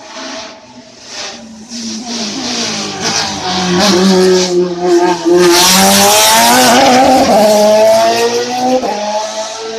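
Hillclimb race car accelerating uphill and passing close by, its engine revving hard and climbing in pitch between gear changes, loudest about six to eight seconds in, then dropping in pitch and fading as it goes away.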